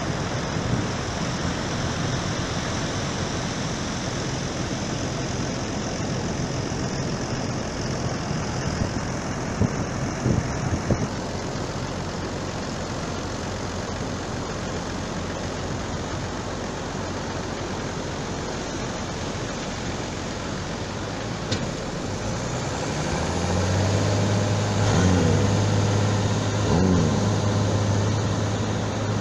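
An engine running steadily under a constant wash of surf and wind, growing louder and stronger about three-quarters of the way through.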